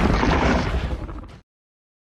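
Movie monster-film sound effect: a loud rumbling blast that fades out and cuts off to dead silence about one and a half seconds in.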